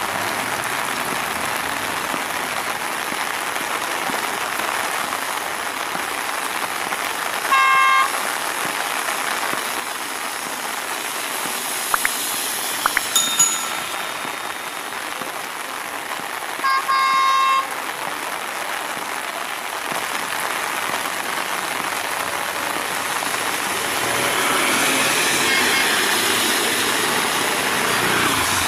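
Heavy rain hissing steadily as a CRRC-built S14A diesel multiple unit approaches. The train's horn sounds twice: a short blast about eight seconds in and a longer, roughly one-second blast a little past the middle. The train's running noise grows louder near the end.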